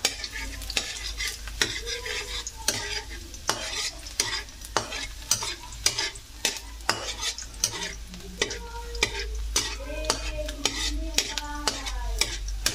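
A metal ladle scraping and tapping against a metal wok in quick, irregular strokes while chopped garlic sizzles in hot oil: garlic being sautéed and browned.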